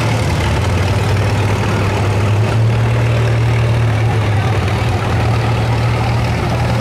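A vehicle engine idling steadily, a constant low hum.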